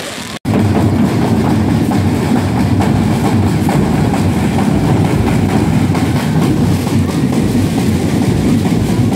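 A firework's crackle breaks off half a second in. A band of many procession drums, many played by children, then beats together in a loud, dense, continuous rolling rhythm.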